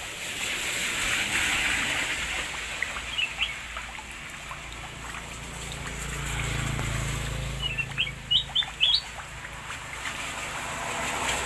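Water trickling and splashing steadily, with short rising bird chirps: a couple about three seconds in, and a quick run of four or five near the end.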